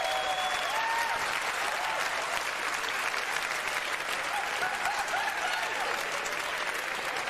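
Large audience applauding after a comedy punchline, with scattered voices laughing over the clapping; the voices stand out near the start and again around five seconds in.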